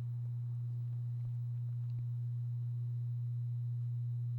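A steady low hum that holds one pitch throughout, with a few faint ticks in the first two seconds, likely from the Phillips screwdriver working the console latch screws.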